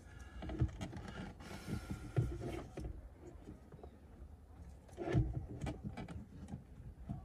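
Hands working a cable into the instrument-cluster opening of a BMW X5 dashboard: scattered knocks and clicks against the dash trim, with a stretch of scraping and rustling around the two-second mark and a firmer knock about five seconds in.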